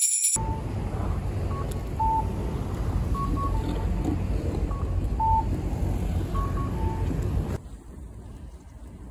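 Loud, steady outdoor street noise, mostly a low rumble, with about a dozen short electronic beeps at two pitches scattered through it; it cuts off suddenly near the end.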